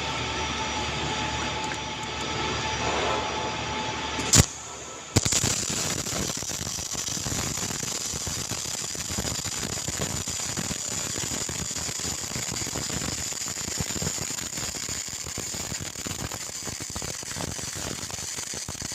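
CO2 MIG welding arc on a vertical root pass, crackling and sputtering steadily from about five seconds in, the fast frying crackle of short-circuit wire transfer. Before it, a steady sound with held tones ends with a sharp click about four seconds in.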